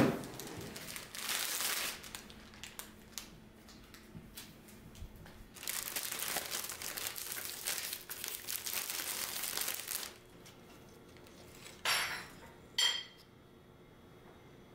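Clear cellophane bouquet wrapping crinkling and rustling in long stretches as it is pulled off the flowers. Near the end come two short sharp clinks about a second apart, with a brief ring.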